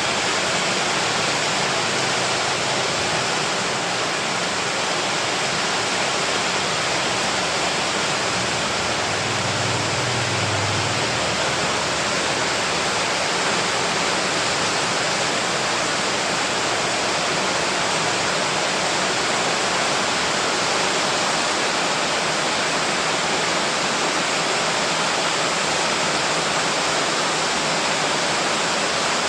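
Steady heavy rain, an even hiss with no single drops or knocks standing out.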